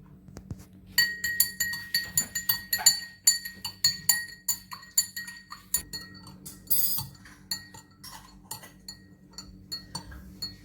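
Spoon clinking again and again against a glass, each clink ringing at the same pitches; the clinks come quickly for about five seconds, then slow and spread out.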